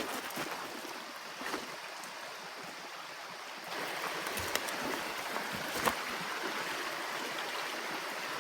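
Stream water rushing steadily, growing louder a little over a third of the way in, with a few sharp clicks or knocks.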